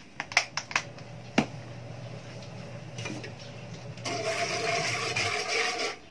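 Wire whisk stirring milk in an aluminium wok, starting about four seconds in. Before it come a few light clicks and a knock, and a low steady hum runs under the first five seconds.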